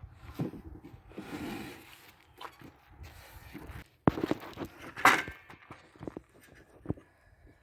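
Scattered knocks, thumps and light scrapes of handling, with a sharp knock about four seconds in and another loud one about a second later. No saw motor is running.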